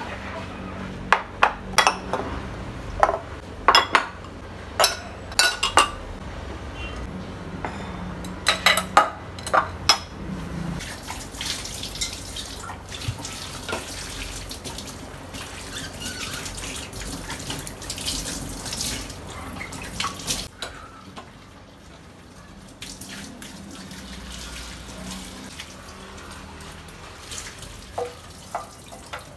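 Dishes being washed under a running kitchen tap: dishes and utensils clink and knock against each other many times in the first ten seconds or so, then mostly the steady rush and splash of tap water, which grows quieter in the last third with a few more knocks.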